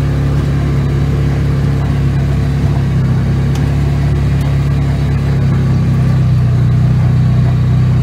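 Polaris side-by-side utility vehicle's engine running steadily while it drives along.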